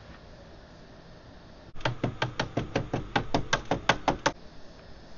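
Hammer tapping a wooden deck handrail down onto snug-fitting wooden spindles, driving their tops into the drilled holes. It is a quick, even run of about fifteen sharp knocks, some six a second, starting a little under two seconds in.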